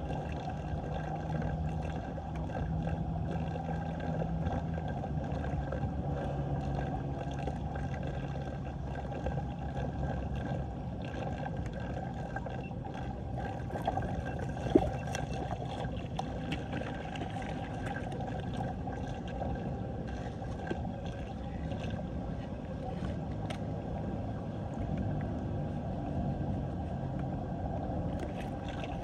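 Floodwater draining in a whirlpool down an unclogged street storm drain: a steady low rushing gurgle. A single sharp click sounds about halfway through.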